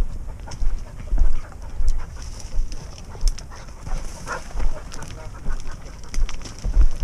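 Footsteps of a person walking over a stony hillside path through scrub at a steady pace, each step a dull thud with crunching stones and brushing twigs.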